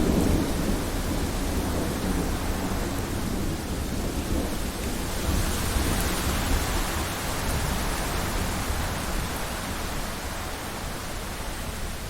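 Thunder rumbling low over steady heavy rain. The rumble is strongest at the start and fades away, and a rushing hiss of rain and wind swells about five seconds in.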